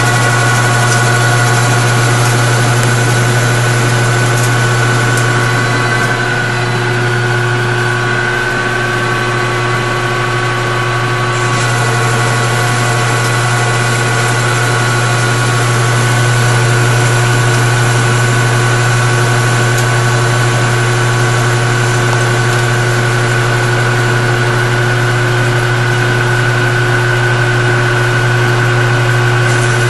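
Metal lathe partly converted to CNC, running its first parts: a steady motor hum with several high whining tones that shift slightly a few times as it works.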